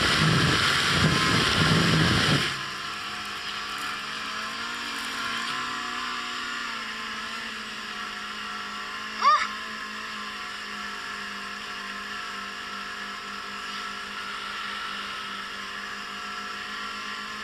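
Yamaha Apex RTX snowmobile's four-stroke four-cylinder engine running steadily under way. A loud rushing sound drops away about two and a half seconds in, and a short rising chirp sounds about nine seconds in.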